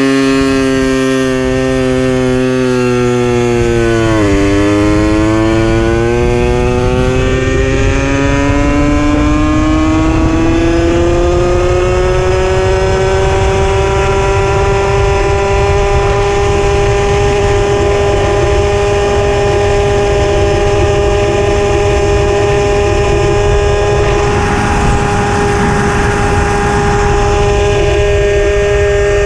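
Puch Maxi moped's 49cc two-stroke single-cylinder engine pulling away: its pitch climbs, dips briefly about four seconds in, then rises steadily and settles into an even cruising note. Wind rumbles on the action camera's microphone throughout.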